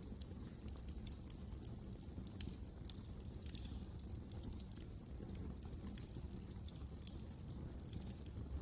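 Wood fire crackling: many small sharp pops and snaps at irregular moments over a low, steady rumble.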